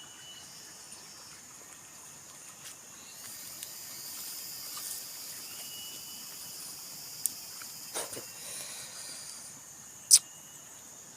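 Steady high-pitched chirring of insects, swelling in the middle, with a few scattered clicks and knocks; the loudest is a single sharp click near the end.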